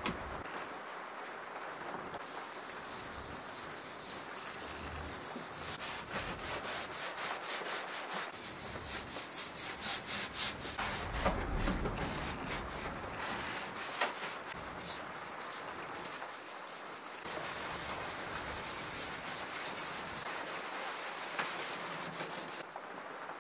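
Sponge rubbing wood stain into a wooden tabletop: repeated scrubbing strokes. Around the middle they run quick and regular, about five a second, and this is the loudest stretch.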